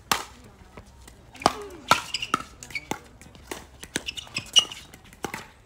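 Pickleball paddles striking a plastic ball back and forth in a fast rally: a run of sharp pops, about two a second.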